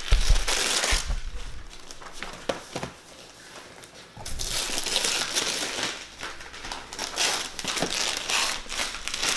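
Gift wrapping paper being torn and crumpled as a box is unwrapped, in rustling bursts, with a lull in the middle.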